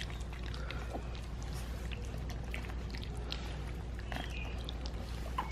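Three-week-old puppies lapping and slurping wet mush from a steel bowl: soft, irregular wet smacks and clicks over a low steady hum.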